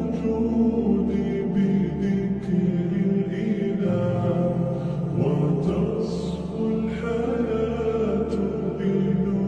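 Background music of sustained, drone-like tones with a slow melody over them.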